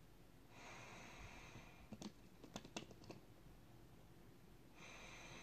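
Breathing through a WW2 British civilian duty gas mask: two faint hissing breaths about four seconds apart, with a quick run of sharp clicks between them.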